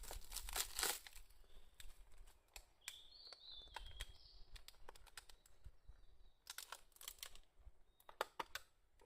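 Faint, irregular clicks and crackling rustles, with a short high chirp about three seconds in.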